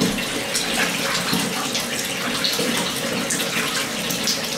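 Water running steadily into a bathtub from the tap, with small splashes as a puppy is washed in it.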